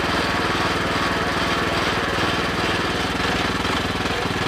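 Small engine of a sugarcane juice press running steadily with a fast, even chugging rhythm.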